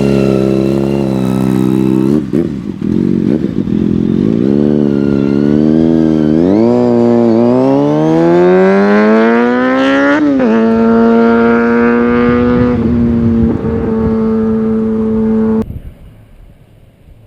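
Kawasaki Ninja ZX-6R 636 inline-four through an M4 GP-style slip-on exhaust, pulling away under throttle. Its pitch wavers, then climbs steadily for about four seconds and drops sharply once. It holds a steady high pitch and cuts off suddenly near the end.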